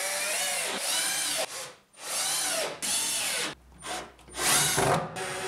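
Cordless drill boring into a wooden batten. The motor revs up and winds down in about four separate trigger-pulled runs, and the last run is the loudest.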